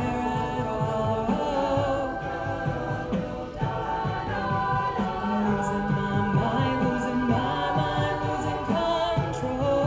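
A cappella vocal group singing held chords in close harmony with no lyrics, the chords changing about once a second, with a few short, sharp high accents over the voices.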